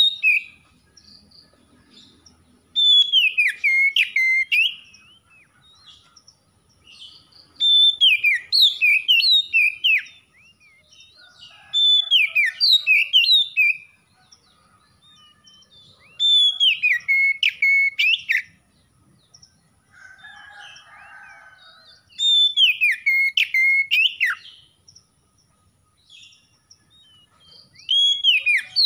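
Oriental magpie-robin singing: six loud whistled song phrases, each about two seconds long and repeated every four to five seconds. Each phrase mixes sliding, falling whistles with a few sharp clicks.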